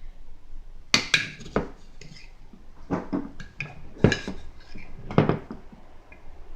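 A spoon clinking and knocking against a dish in a few short groups of sharp strikes, as spoonfuls of sugar are measured out and tipped in.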